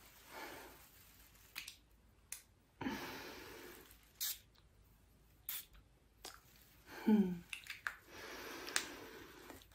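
A woman's soft breathy exhales and sighs, with a short falling hum or chuckle about seven seconds in, and a few light clicks scattered between them.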